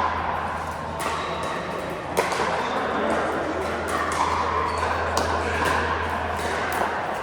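Pickleball paddles hitting balls: several sharp pops at irregular intervals over a steady background of voices.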